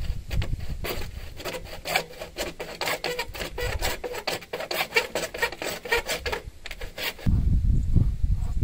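Hand saw cutting through a white PVC pipe, with rapid, even back-and-forth rasping strokes. The sawing stops about seven seconds in, followed by a low rumble.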